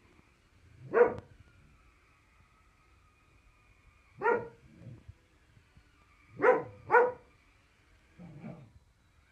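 Dalmatian barking: single sharp barks about a second in and about four seconds in, then two in quick succession, then a softer, lower bark near the end.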